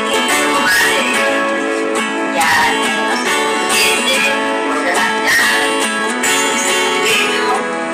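Background music led by strummed guitar, with a steady rhythm.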